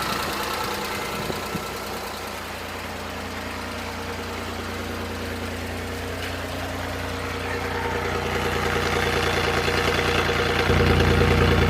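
Suzuki F6A three-cylinder engine idling steadily and evenly, with no misfire now that the distributor cap has been replaced. It grows louder over the last few seconds.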